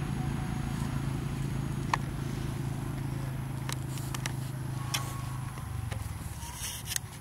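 A low, steady engine hum that drops lower a little before the end, with a few sharp clicks over it.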